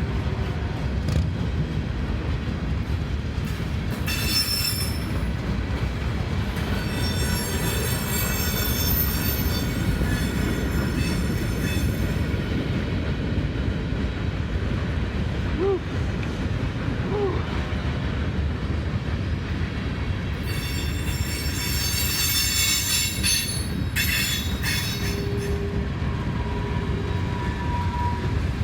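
Freight train cars rolling past with a steady low rumble as the train slows, with high-pitched steel-wheel squealing in two long spells, one a few seconds in and another past the middle.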